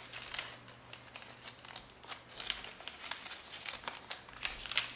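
Sheet of origami paper crinkling and crackling in spells as it is folded and creased into the closed sailboat shape, with a sharper crackle near the end.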